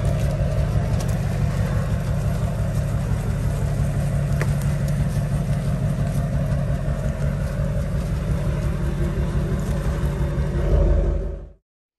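A truck engine running steadily while skidding logs. It fades out quickly near the end.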